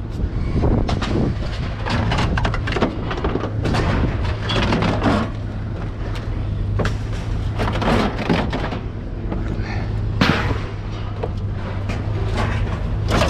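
Scrap metal being pulled from a truck bed and thrown onto a scrap pile: irregular clanks, bangs and scrapes of steel and iron, over a steady low hum.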